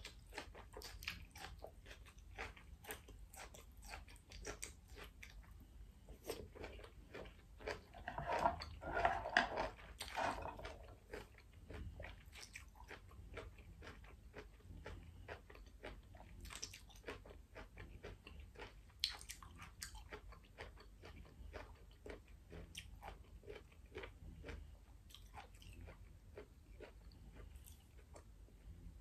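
Close-miked chewing of a mouthful of stir-fried asparagus: many small wet mouth clicks throughout, with a louder stretch of chewing about eight to ten seconds in.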